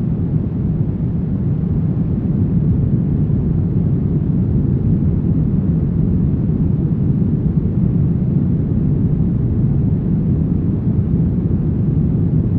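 Synthetic brown noise: a steady, deep rushing hiss weighted toward the low end, with no events or changes.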